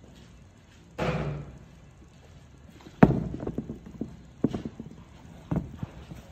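Handling noise of sneakers in a cardboard shoebox: a brief rustle about a second in, a sharp knock about three seconds in, then a few lighter knocks.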